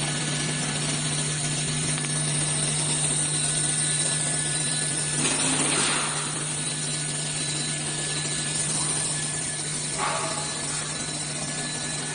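Automatic tool changer CNC router running, a steady mechanical hum with several steady motor tones. There is a louder, noisier passage about halfway through and a short change about ten seconds in.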